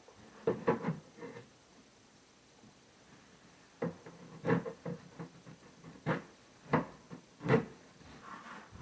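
Irregular knocks and thuds of melamine cabinet panels and parts being handled and set in place during assembly, a cluster about half a second in and then single knocks every second or so, the loudest near the end.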